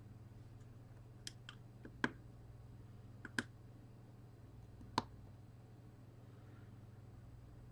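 A handful of short, sharp clicks and taps of small hard objects, the loudest about two, three and a half and five seconds in, over a steady low electrical hum.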